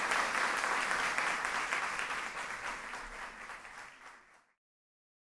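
Audience applauding, fading out steadily and cutting to silence about four and a half seconds in.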